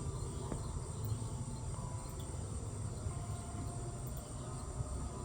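Steady high-pitched chirring of insects such as crickets, over a constant low rumble.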